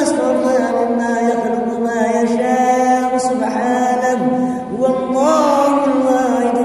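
A man's voice reciting the Qur'an in a melodic, chanted style, holding long drawn-out notes with ornamented turns in pitch.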